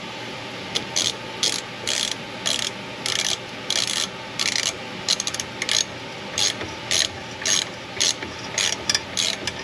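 Socket ratchet clicking in short bursts, about two a second, as it turns a thread tap through a drilled-out exhaust bolt hole in a Ford FE cylinder head.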